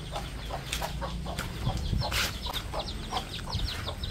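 Chickens clucking, with a quick run of high chirps from about halfway through. Scattered soft thuds of footsteps in slippers on dirt sound underneath.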